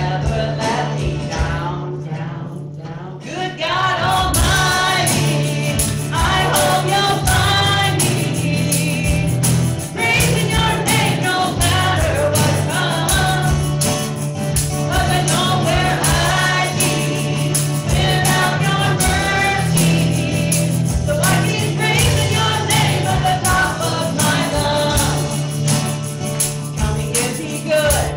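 Church worship song: voices singing over a band with a steady beat and held low bass notes. The band thins briefly, then comes back in full about four seconds in.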